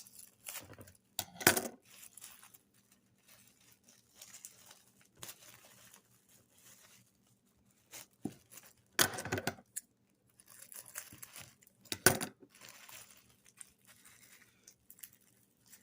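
Plastic wrapping crinkling and tearing as a packaged lollipop is opened, in irregular rustles with sharper, louder bursts about a second and a half, nine and twelve seconds in.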